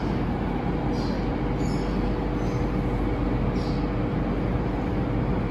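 Steady background hum and hiss with a faint constant tone, unchanging throughout.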